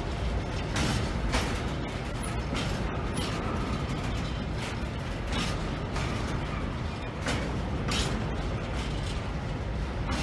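A train passing through the station: a steady low rumble with sharp clacks about once a second as its wheels run over rail joints.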